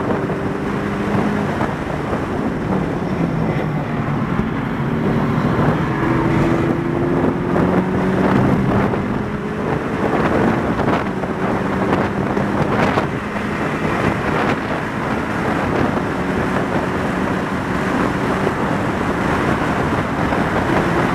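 2019 Porsche 718 Cayman GTS's turbocharged flat-four engine, heard from inside the cabin at racing speed. It pulls hard at full throttle with its pitch rising, then upshifts through the gears, over steady wind and tyre noise.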